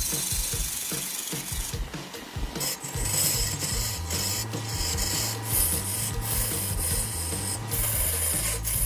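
Steel turning tool cutting into a large wood blank spinning on a wood lathe: a continuous rasping, scraping cut broken by short pauses. From about three seconds in, a steady low hum runs under it.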